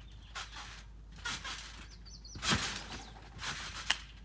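Feet bouncing on a trampoline mat: four thumps roughly a second apart, the loudest about halfway through, as a gymnast builds height for a flip.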